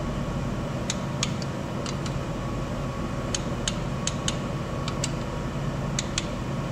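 Torque wrench ratcheting on the engine's blower bolts: scattered sharp single clicks, one to two a second, as the bolts are torqued down. A steady low hum runs underneath.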